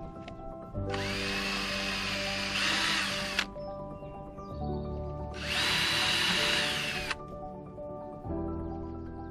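Cordless power drill running in two bursts of about two seconds each, its motor whine rising in pitch as it spins up, typical of driving or backing out screws. Background music plays underneath.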